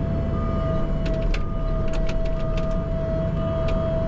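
CAT 304 mini excavator working under load: diesel engine running with a steady whine over it, an alarm beeping about once a second, and several sharp metal clanks.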